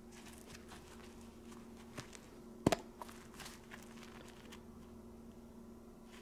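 A small tack weld joining two 7075 aluminium strips is bent by gloved hands until it breaks. There is a small click about two seconds in, then a sharp, louder snap a moment later as the weld breaks off through the middle of the filler rod, followed by a few faint clicks. A faint steady hum runs underneath.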